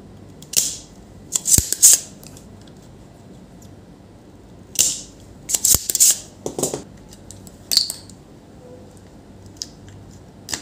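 Spring-loaded desoldering pump (solder sucker) being cocked and fired on a circuit-board solder joint: a string of short hissy clicks, with two sharp snaps, about a second and a half in and near the middle.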